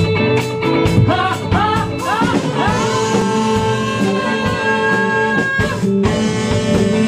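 Band music: a singing voice over guitar and drum kit.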